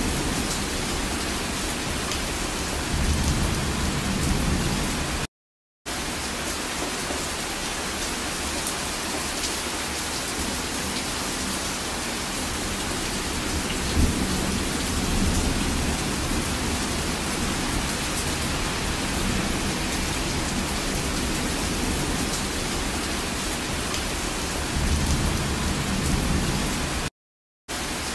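Rain falling steadily in a rainstorm, an even hiss. Low rumbles swell up a few seconds in and again near the end, with a single short thump near the middle, and the sound cuts out briefly twice.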